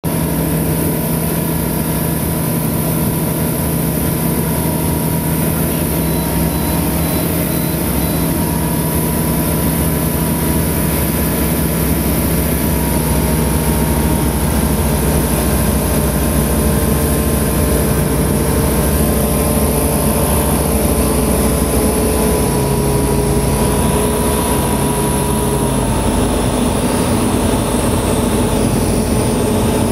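Aquila A210's Rotax 912 S engine and propeller droning steadily, heard from inside the cockpit during the descent toward landing. The engine note drops slightly in pitch a little over twenty seconds in.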